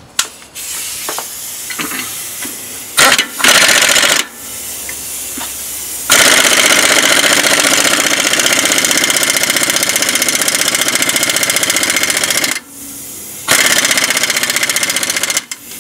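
Husky power tool (not an impact wrench) running a socket on a lug nut to draw a new wheel stud into a trailer hub, with a fast, rapidly pulsing mechanical chatter. It runs briefly about 3 s in, then for about six seconds from the middle on, stops, and runs again for about two seconds near the end.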